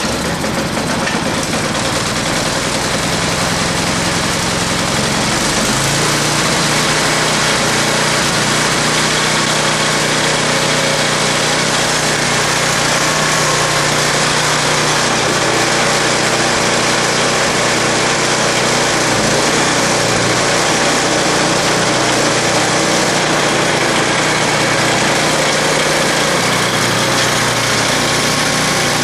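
Ariens two-stage snowblower's single-cylinder gas engine catching on a pull of the recoil starter after priming, then running steadily at high speed. Its low note changes and settles about six seconds in.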